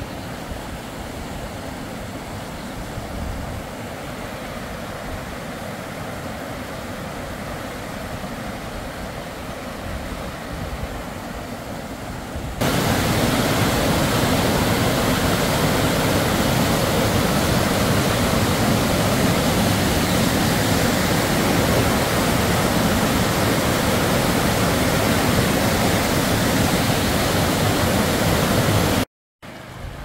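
Steady rushing of a rocky mountain river flowing over stones. About a third of the way in it jumps abruptly louder to the heavier roar of a white-water cascade, which holds steady until it cuts off shortly before the end.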